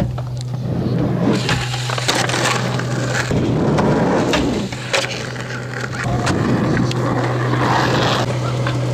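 Skateboard wheels rolling and the board knocking on a wooden ramp and asphalt, with a sharp clack about five seconds in. A steady low hum runs underneath.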